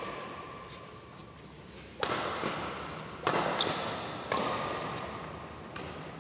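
Badminton doubles rally: rackets striking the shuttlecock about five times, each hit sharp and followed by a long echo in the hall.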